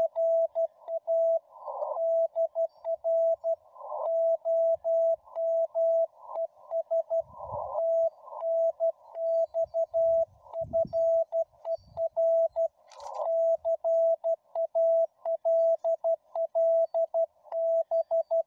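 Morse code from a Xiegu G90 HF transceiver on the 20 m CW band: a single steady tone keyed on and off in quick dots and dashes, with short bursts of filtered band hiss in the longer gaps. A sharp click comes about 13 seconds in.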